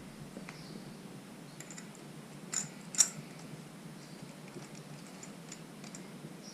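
Light clicks and taps of hand tools and small metal engine parts being handled, with two sharper clicks about two and a half and three seconds in.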